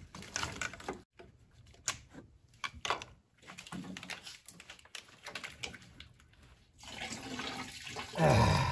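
Scattered clicks and rustles of plastic wiring-harness connectors and loom being handled and unplugged in an engine bay. About seven seconds in a steady hiss sets in, and near the end comes a short, loud sound falling in pitch.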